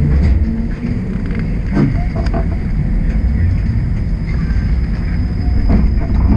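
Toronto streetcar moving slowly: a steady low rumble with a faint high whine and a few light knocks.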